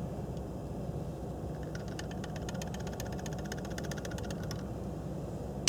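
Wind rumbling steadily on the microphone, with a quick, light rattling for about three seconds in the middle as black powder is poured down the muzzleloader's barrel.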